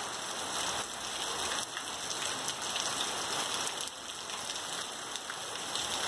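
Fine, light rain falling steadily: an even hiss of many small drops.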